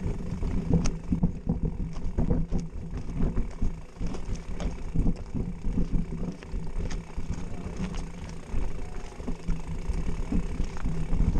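Mountain bike being pushed on foot up a steep, rocky dirt climb: irregular knocks and rattles from the bike and camera, with shoes scuffing on loose dirt and stones.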